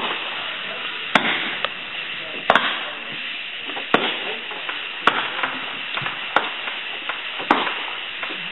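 Consumer fireworks going off: a steady hiss with a sharp bang roughly every second and a quarter, about seven loud bangs in all and smaller pops between.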